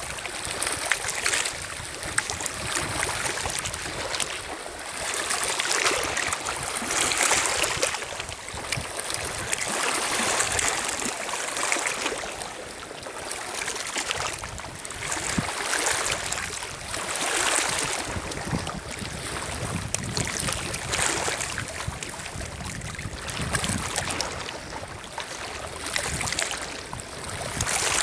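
Small lake waves lapping and washing over a stony pebble shore, swelling and fading every two to three seconds.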